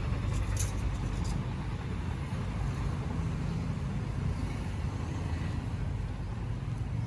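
Motor vehicle engine running at a steady idle, a low even hum, with a couple of faint clicks in the first second or so.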